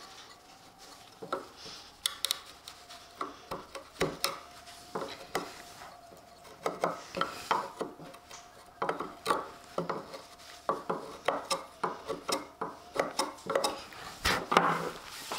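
Steel corner chisel paring the inside corner of a softwood box by hand: an irregular run of short scraping strokes of metal on wood, with some sharper clicks.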